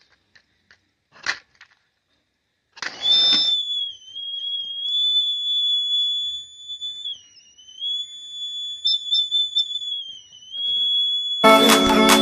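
A short hiss, then a single high whistling tone held for about eight seconds, wavering slightly in pitch; music starts near the end.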